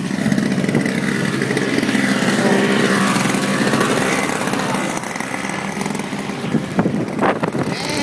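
Gas snowblower engine running steadily close by, loudest two to four seconds in, with wind buffeting the microphone.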